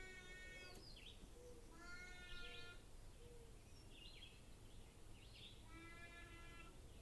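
Faint outdoor quiet with three drawn-out animal calls, near the start, about two seconds in and about six seconds in, and a few brief high bird chirps between them.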